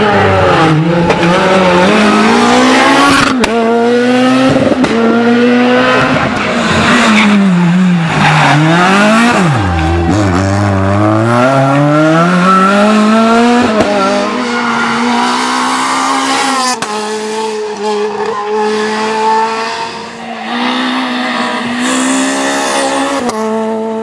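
Renault Clio R3 rally cars' four-cylinder engines revving hard, the pitch climbing through the gears, dropping sharply on lift-off and braking, then climbing again. Several passes are edited back to back.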